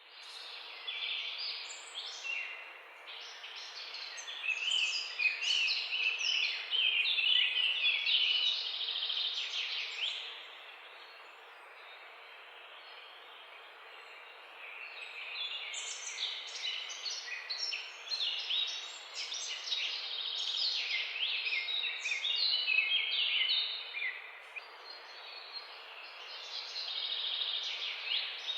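Birds chirping: many quick, overlapping chirps and trills over a steady background hiss, fading to a lull of about five seconds around the middle before picking up again.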